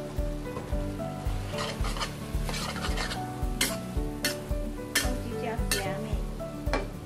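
A metal spatula scraping and knocking against a stainless-steel wok as rice vermicelli is stir-fried with a light sizzle, with a run of sharp strikes from about a second and a half in. Background music with a steady beat plays throughout.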